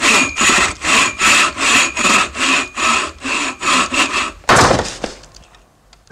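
Hand saw cutting wood, quick even strokes about two and a half a second, ending in one longer, louder stroke that dies away.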